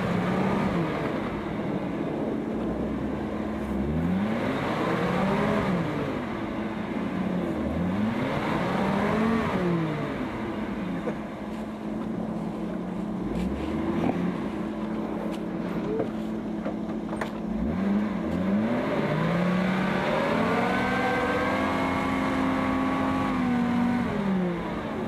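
Engine of a six-wheel-drive off-road truck revved up and down again and again as it strains to climb out of a deep snow and mud rut. There are several short revs, then a longer, higher rev held for a few seconds near the end.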